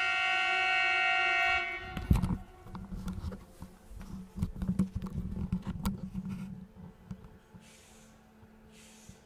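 A train horn sounds one steady blast of just under two seconds. It is followed by a thump and a low steady hum with rumbling, which fades out after a few seconds.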